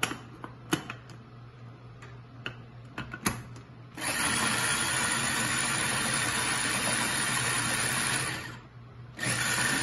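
Small electric food chopper: a few clicks and knocks as the motor unit is fitted onto the glass bowl, then its motor runs steadily for about four seconds chopping green chillies, stops briefly, and starts again near the end.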